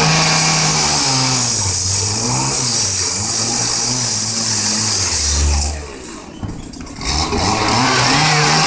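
Chainsaw cutting into a car's body, its engine pitch rising and falling as the chain bogs and frees in the metal, with a harsh hiss from the cut. About six seconds in the saw briefly drops back, then revs up again.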